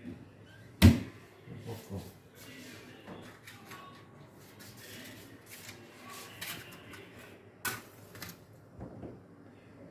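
Kitchen utensils and containers being handled: a sharp knock about a second in, small clicks and rustling, then another sharp click near the end.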